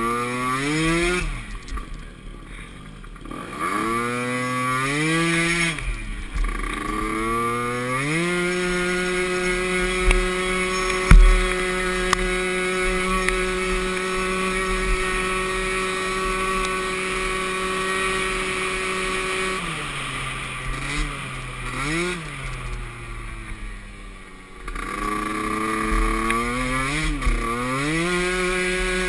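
Small youth ATV engine racing: it revs up and backs off several times, then holds a steady high pitch for about ten seconds, then blips up and down again. There is a sharp thump about eleven seconds in.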